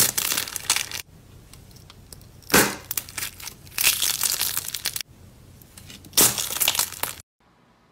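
Painted eggshells crackling and crunching as a hand crushes them around squishy stress balls, in four bursts of brittle crunching. The sound cuts off suddenly near the end.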